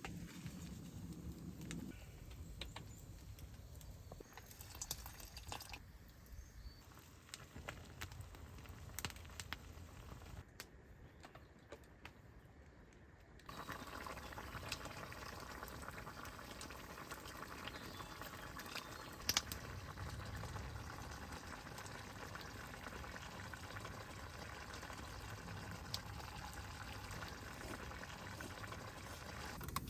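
Liquid being poured and simmering in a pot over a small fire, with scattered sharp clicks.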